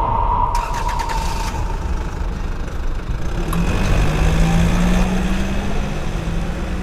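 Car engine running with a steady low rumble. About halfway through, a low engine note sets in and rises slowly in pitch.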